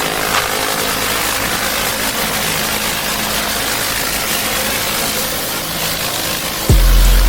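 Pressure washer's engine running steadily under the hiss of high-pressure water spray. Near the end a much louder, deep low sound cuts in suddenly.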